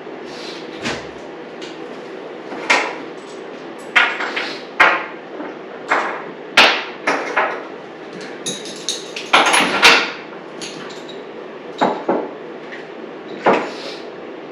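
Irregular knocks and clanks, about fifteen in all, from tools and motorcycle parts being handled and set down during a dirt-bike teardown, over a steady background hum.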